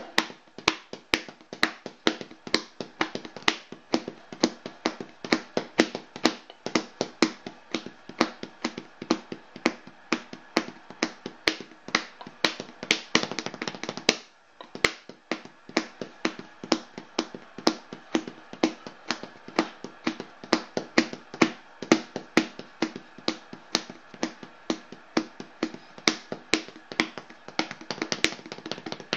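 A hand-drummed beat of sharp taps, about four a second in a repeating rhythmic pattern, with a short break about halfway through.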